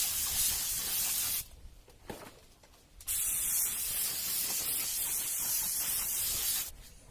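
Paint spraying during a car body refinish: two long bursts of hiss with a short pause between, the second about twice as long as the first.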